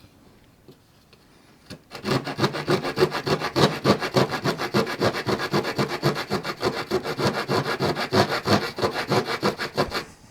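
The small folding saw blade of a multi-tool cutting with rapid back-and-forth strokes, starting about two seconds in and stopping shortly before the end; the saw cuts well.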